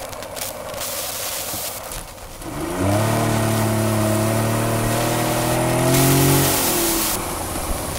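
Yamaha 60 hp two-stroke outboard motor (FETO) revving up about two and a half seconds in, held at a steady high throttle, then easing off near the end. It is being run under way after an adjustment of the ignition advance, and the owner says it is still not performing.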